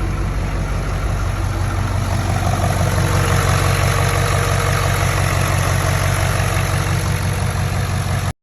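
Ford F-550's 6.7-litre Power Stroke turbo-diesel V8 idling steadily.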